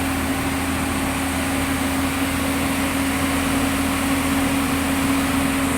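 Excavator's diesel engine running at a steady idle: an even drone with a constant low hum and one steady tone.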